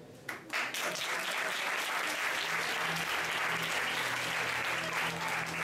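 Audience clapping, breaking out suddenly just after the start and holding steady. A low steady tone comes in under the applause about halfway through.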